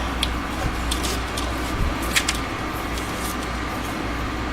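Steady hum and rush of an electric fan running, with a few light clicks over it.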